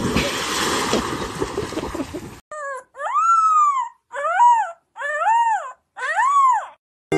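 A young puppy howling: one short cry and then four drawn-out howls, each rising and falling in pitch. Before them, for about the first two seconds, there is a rushing splash of water.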